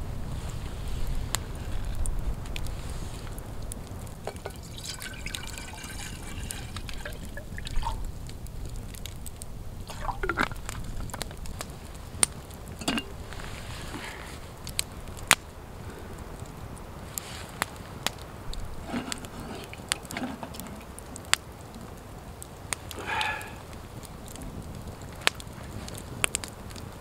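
Wood campfire crackling, with sharp pops from the burning logs scattered throughout and a few louder snaps.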